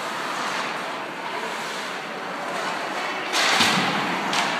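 Steady, even noise of a game in a large hall, with a loud sharp clatter about three and a half seconds in and a shorter one just before the end.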